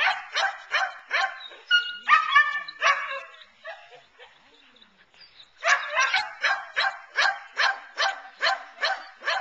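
A dog barking repeatedly, about three barks a second, in two runs with a pause of about two seconds between them; a few higher, drawn-out yelps mix in near the end of the first run.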